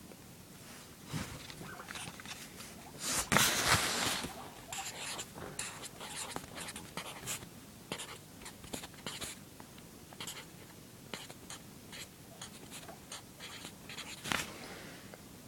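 Drawing on paper: a pen or pencil scratching in quick, irregular strokes, with a longer, louder run of strokes about three seconds in.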